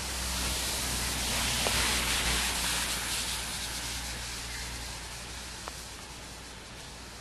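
Hiss of drizzle and wind in the forest trees, swelling to a peak about two seconds in and then slowly fading, with one faint tick near the end.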